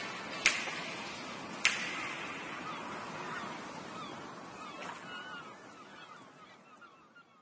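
Background music fading out, with two sharp percussive hits about half a second and a second and a half in. Faint short chirping glides come near the end as it dies away.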